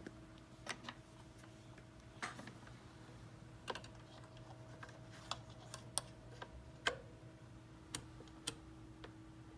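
Irregular sharp clicks, about a dozen, over a steady low electrical hum.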